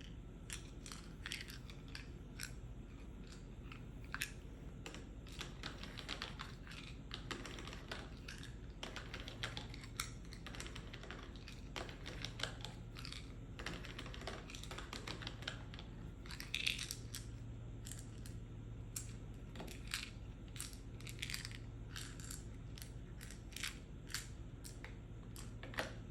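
Fingertips and nails tapping on a pill box: quick, irregular clicky taps, several a second, over a faint steady low hum.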